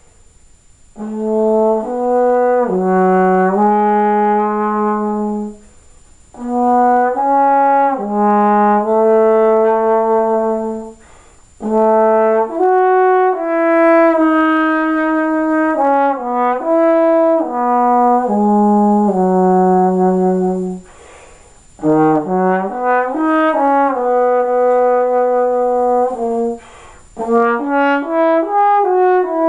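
A solo trombone plays unaccompanied phrases of held, sliding notes, with short pauses for breath between them, four times.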